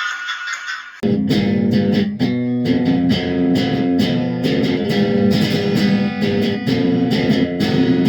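Instrumental rock music. A thin, high-pitched passage gives way about a second in to electric guitar and bass, with regular sharp percussive hits.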